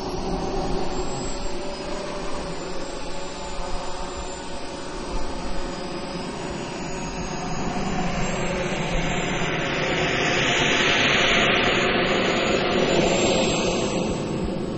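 Quadcopter's electric motors and propellers whirring steadily, heard through the camera it carries, with a rushing hiss that swells about two-thirds of the way in and fades near the end.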